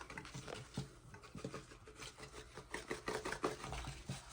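Baking soda being poured and shaken from its container into a drain: a faint, irregular rustle of small scrapes and taps.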